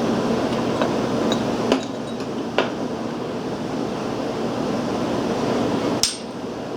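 A few light metal clinks and taps of hand tools against a small cast-iron engine in the first three seconds, and one sharper clink about six seconds in, over a steady fan-like hum.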